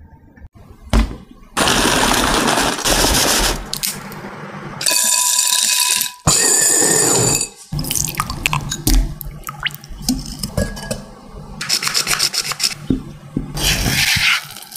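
Food-preparation sounds in a glass mixing bowl: ingredients, beaten egg among them, poured in over several bursts a second or two long each, then a spatula stirring and scraping a crumbly dough against the glass with many small scrapes and clicks.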